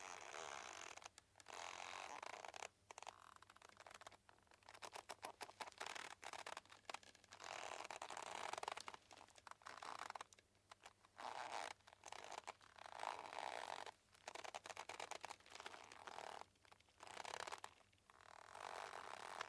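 Boat mooring ropes creaking and squeaking under strain as the moored boat shifts, in repeated rasping stretches of a second or two with brief pauses between.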